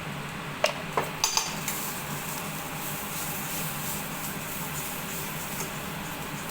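A few sharp clinks of a metal spoon on a kadai in the first second and a half, then the steady sizzle of onion paste and spice powders frying in mustard oil.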